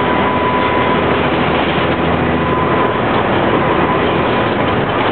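Interior noise of a Flxible Metro D transit bus under way: steady engine and road noise with a thin, steady whine running through it.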